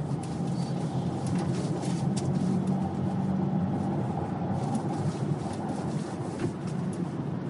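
Car engine and road noise heard from inside the cabin while driving: a steady low rumble with no other distinct events.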